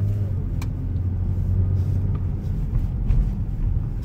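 Car heard from inside the cabin while driving: a steady low engine and road hum, with a faint click about half a second in.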